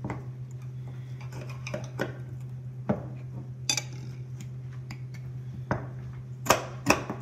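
A boning knife scraping meat and fat off a rib bone on a black walnut butcher block: a string of short scrapes and clicks, with a few sharper knocks of blade on bone and board near the end, over a steady low hum.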